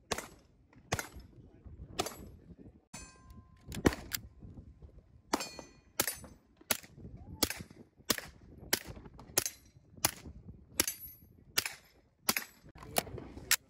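A steady string of about eighteen single gunshots, roughly one every 0.7 seconds, from a suppressed semi-automatic pistol. A few shots are followed by a brief metallic ring.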